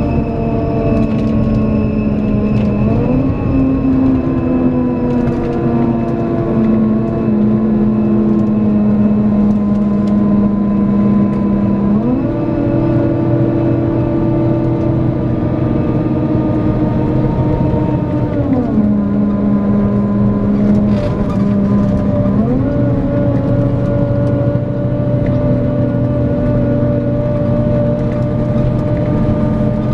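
Scania K410EB6 coach's six-cylinder diesel engine running under way, heard from inside the coach. Its note steps up in pitch about three seconds in, again about twelve seconds in and near the end, and drops back once in between. A faint high whine runs above it.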